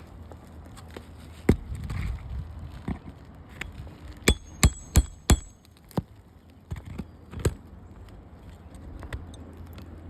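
Hammer striking a steel pry tool to work the nails of a damaged asphalt shingle loose. One blow, then four quick ringing strikes about four seconds in and a couple of lighter knocks later, with scraping and handling noise between.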